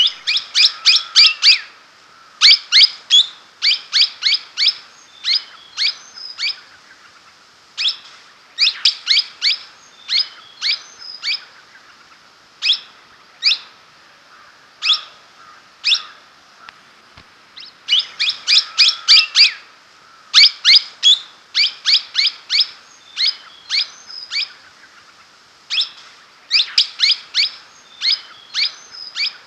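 Blossom-headed parakeet calling: short, high-pitched calls in quick runs of about four to six, broken by pauses, with a few single calls in between.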